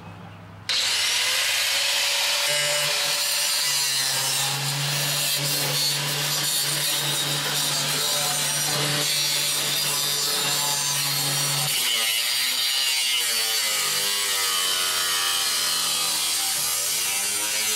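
Power saw cutting through the sheet-metal cab of a Chevy pickup, running steadily under load from about a second in. The cut is going back over a panel that would not come free.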